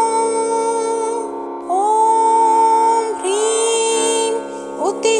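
Devotional music: a voice holding long sung notes over a steady drone, gliding into a new held note a few times.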